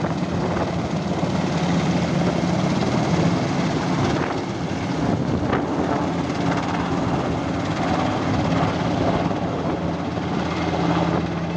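Large twin-turbine firefighting helicopter, a Super Puma type, with its rotors and turbines running steadily under load as it lifts a filled water bucket off the reservoir and climbs away. The sound carries a steady low hum under continuous rotor-wash noise.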